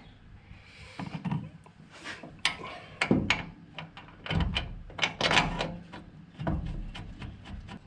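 A metal pedal assembly knocking and scraping as it is manoeuvred into place against a vehicle firewall: a string of irregular clunks and rubs.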